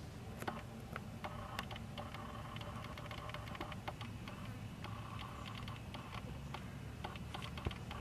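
Scattered light clicks and taps from hands handling boiled eggs and leaves, over a faint steady drone.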